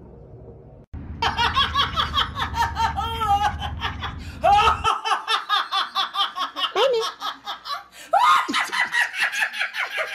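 A woman laughing hard and loud in rapid repeated bursts, broken by a few rising squeals as she catches her breath. The laughter starts about a second in.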